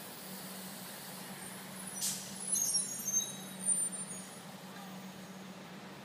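Street traffic with a heavy vehicle running with a steady low engine hum. About two seconds in, a sharp high hiss and a couple of seconds of loud hissing bursts, typical of a bus or truck air brake.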